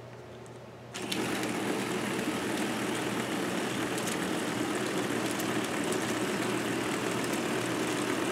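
A K'nex battery motor switched on about a second in, running steadily and driving the plastic K'nex gear train with a continuous whirr and light scattered clicks.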